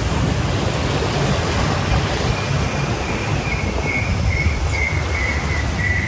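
Steady rush of water from the river-rapids ride: waterfalls pouring onto rocks and churning water around the round raft, with a low rumble underneath. A faint, wavering high-pitched tone comes in about halfway through.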